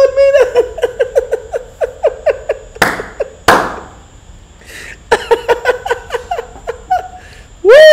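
A man laughing hard in a long run of short, high-pitched laugh pulses, several a second, with two short bursts of noise about three seconds in and a brief lull after them.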